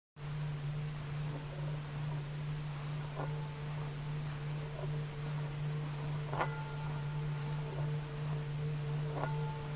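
Singing bowls: one steady low tone is sustained, and a higher bowl is struck three times, about every three seconds, each strike ringing on in clear high tones.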